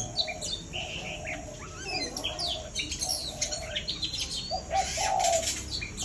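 Several songbirds chirping and whistling in quick, varied sliding phrases, with a low call like a dove's coo repeating beneath them. A brief rustle comes near the end.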